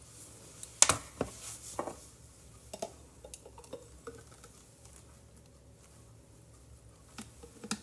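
Several sharp plastic clicks and knocks as the top unit of a portable blender bottle is taken off and set down, the loudest a little under a second in. Then a quieter stretch while the thick smoothie is poured into a glass, with a few small clicks near the end.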